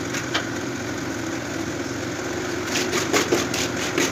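Steel trowel scraping and knocking against a metal pan of sand-cement mortar, with a few sharp scrapes about three seconds in and a knock near the end as the pan is tipped out. A steady motor hum runs underneath.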